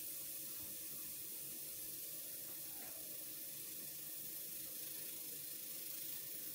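Low, steady hiss of background room tone, with no distinct sounds standing out.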